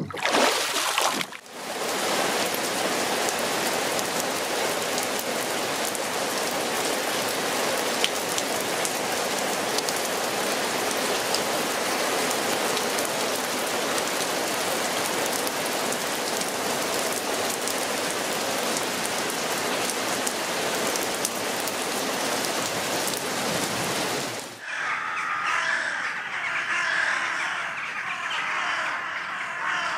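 Steady heavy rain falling on a lake surface and wet boards. About 25 s in it cuts off and gives way to a flock of crows cawing.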